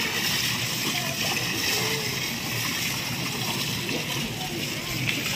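Steady splashing and rushing of swimming-pool water, with faint voices in the background.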